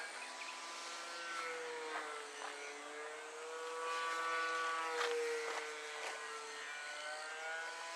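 Electric motors and propellers of radio-controlled model airplanes flying overhead: a steady buzzing whine whose pitch slowly wavers up and down, dipping about six seconds in.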